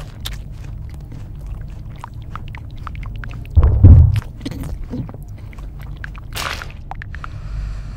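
Wet chewing and squelching, like a zombie feeding, with many small sticky clicks and a heavy low thump about three and a half seconds in.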